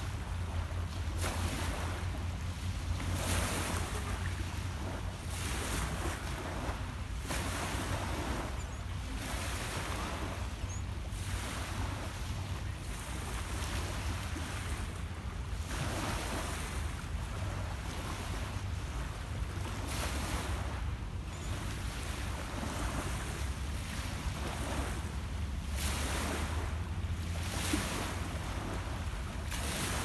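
Small lake waves washing and lapping onto a pebble beach, a fresh swell every few seconds, over a steady low rumble of wind on the microphone.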